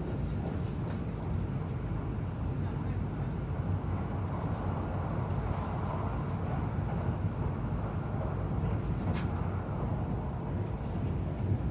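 Train running at speed, heard from inside the passenger car: a steady low rumble of wheels on rails, with a brief sharp click about nine seconds in.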